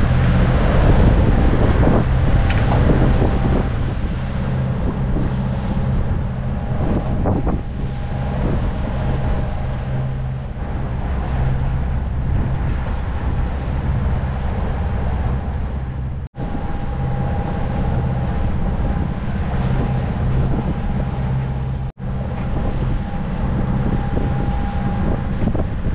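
Steady low drone of a sailing yacht under way, with wind buffeting the microphone and water rushing along the hull. The sound drops out completely for an instant twice, about two-thirds of the way through and again near the end.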